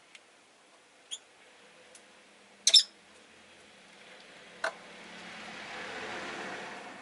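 Rosy-faced lovebird giving a few short, sharp chirps, the loudest a quick double chirp about a third of the way in. In the second half, the noise of a passing vehicle swells and then fades.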